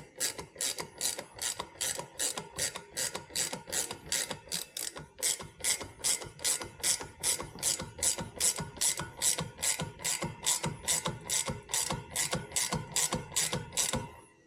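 Hand ratchet wrench clicking steadily, about three clicks a second, as a fastener is run down while the clutch is reassembled. The clicking stops near the end.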